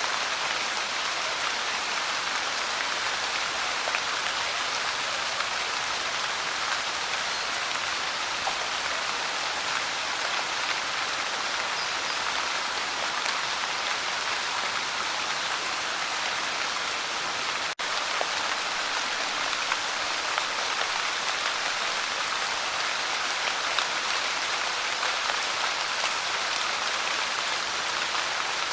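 Light rain falling steadily: an even hiss with fine, scattered drop ticks. The sound drops out for a split second about two-thirds of the way through.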